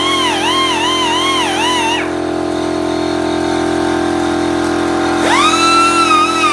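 Background music: a high, wavering melodic line over a steady drone. The melody breaks off about two seconds in and comes back near the end with an upward slide.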